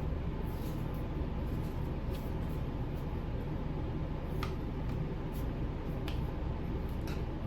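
Steady low room hum with a few faint, sharp clicks a second or two apart, from handling a plastic folding phone stand.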